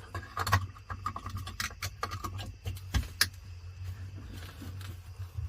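Small plastic clicks and rattles of hands working among the wiring and connectors in a jet ski's electrical box, over a steady low hum.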